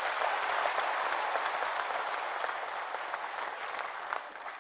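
Audience clapping, a dense round of applause that dies away toward the end.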